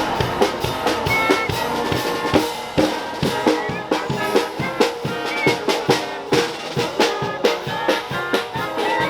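Music with a quick drum-kit beat, snare and bass drum hits under steady pitched instrument notes.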